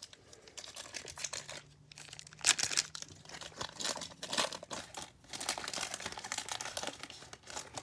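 Trading-card pack wrapper being torn open and crinkled: a run of irregular crackling rustles, loudest about two and a half seconds in.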